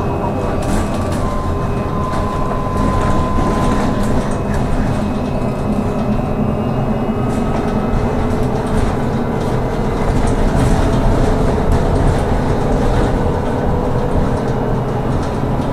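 A trolleybus driving, heard from inside: its electric traction drive whines in steady tones over a constant low rumble of the road and body, with light rattles.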